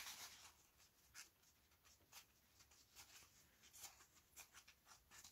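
Near silence, with faint, scattered soft scratching and rubbing sounds about once a second from small hand work on a model: a paintbrush and paper towel on a model oil drum.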